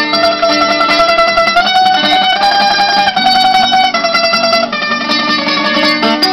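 Two acoustic guitars playing a song together: chords strummed underneath a picked melody line of long held notes that climbs and falls back.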